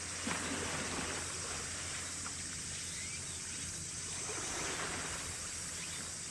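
Steady waterfront ambience: a constant low hum under an even wash of noise like wind and water.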